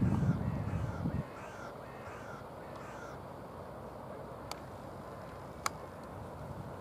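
A bird calling about six times in quick succession, roughly two calls a second, over the first three seconds. Under the first calls runs a low rumble that stops about a second in, and two sharp clicks come later, a little over a second apart.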